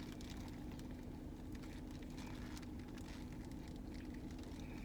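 Faint crunching and chewing of a crispy fried chicken sandwich, heard over a steady low hum inside a car.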